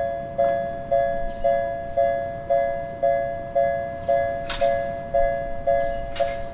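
Japanese level-crossing warning bell ringing, a two-note ding repeated about twice a second, each strike fading before the next: the crossing is closed for a train. Two sharp clacks cut in about four and a half and six seconds in.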